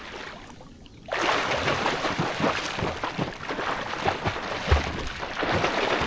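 Sea water splashing and sloshing close to the microphone at the water's surface, starting abruptly about a second in and going on as a dense run of irregular slaps and splashes.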